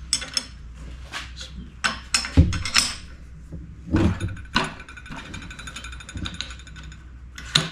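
A ratchet wrench being worked on a nut of a Di-Acro No. 2 bender, with a scattered run of metal clicks and knocks, steel on steel, and a brief stretch of fine ratchet clicking.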